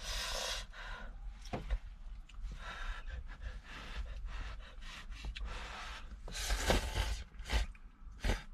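A person eating very hot noodles: noisy slurps and sharp breaths of air drawn in to cool the mouthful, the loudest right at the start and again near the end, with a few small clicks between them.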